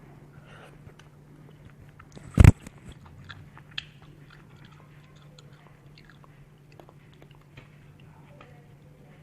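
Person chewing and biting a mouthful of tteokbokki and ramyeon, with soft wet mouth clicks, over a steady low hum. About two and a half seconds in comes one loud sharp knock.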